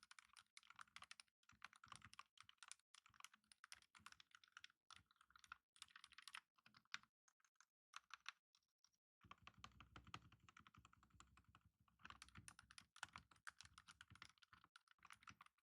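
Typing on a GamaKay TK75HE V2 Hall effect keyboard with silent magnetic switches: a fast, faint patter of key presses, with a short break about seven seconds in.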